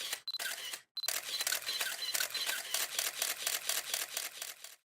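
A rapid, even series of sharp clicks, about eight to ten a second, with a short break about a second in. It stops abruptly near the end.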